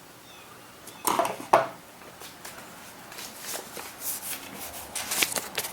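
Folding knives and small items being handled and set down on a tabletop: two sharp knocks about a second in, then a string of light clicks and rustles.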